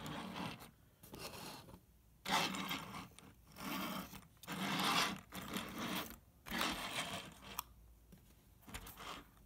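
Small plastic wheels of toy fingerboard skateboards, glued under a cardboard and craft-foam model ambulance, rolling and scraping across a desk top in a series of short pushes back and forth.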